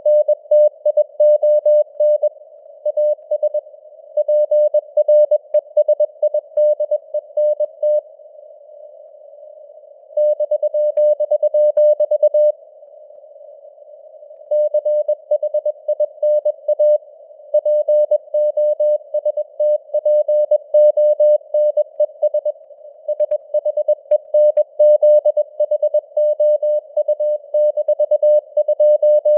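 Morse code sent at 21 words per minute as a single keyed tone, in a narrow band of simulated radio receiver hiss, with the signal strength fading up and down (QSB). Twice the keying pauses for about two seconds, leaving only the hiss.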